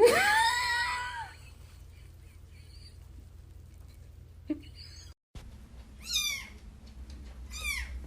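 A cat meowing: one long meow that rises, holds and falls in the first second, then two shorter high calls that drop in pitch near the end.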